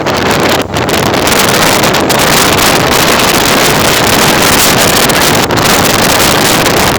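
Strong wind blasting across the microphone, a loud, steady rush of noise.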